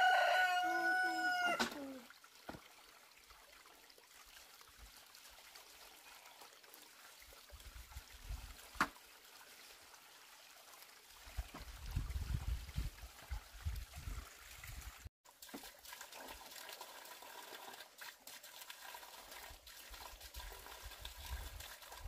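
A rooster crows once near the start, one long pitched call of about two seconds. After that there is only quiet low rumbling and rustle.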